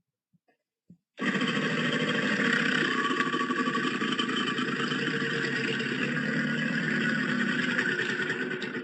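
A Godzilla film sound effect: a loud, steady, harsh rasping sound that starts about a second in, holds for about eight seconds without rising or falling, and cuts off abruptly.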